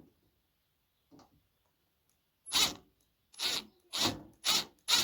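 A run of short rasping scrapes, about two a second, beginning a little past halfway in.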